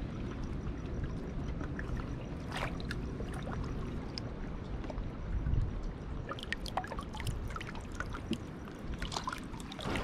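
Shallow seawater sloshing and trickling around hands and legs, with many small scattered drips and splashes over a low steady rumble.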